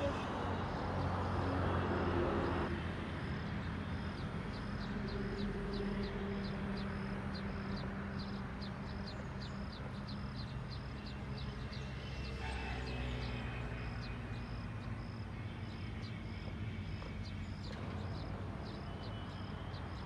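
Low, steady hum of a running engine or nearby traffic, with a high, even chirp repeating about twice a second over it.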